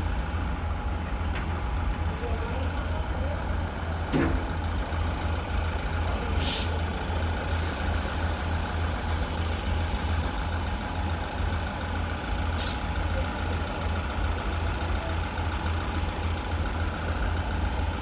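A train's diesel engine running with a steady low rumble. Compressed air hisses over it: briefly twice and once for about three seconds midway, with a sharp knock about four seconds in.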